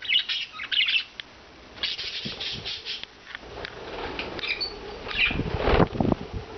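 Pet budgerigars chirping in short bursts of chatter, then a flurry of wing flaps about five seconds in as a budgie takes off or lands.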